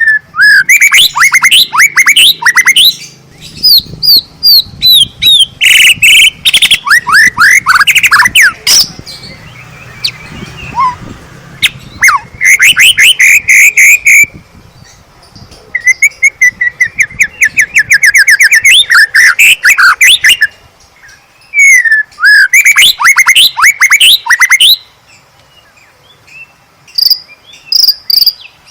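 White-rumped shama singing in full, vigorous song: loud phrases of rapid sweeping whistles and trills, broken by short pauses.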